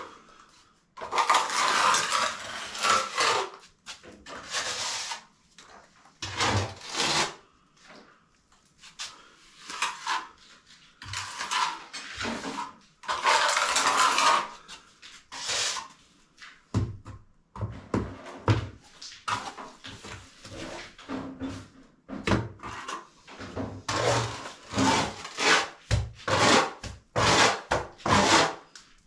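Hand trowel scraping and smoothing wet render across a patched doorway, in long strokes of a second or two at first and then shorter, quicker strokes with light knocks of the tool against the wall.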